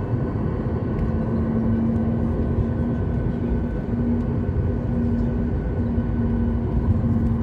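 Boeing 737 cabin noise while taxiing: the jet engines at low taxi power give a steady rumble with a low drone and a fainter high whine.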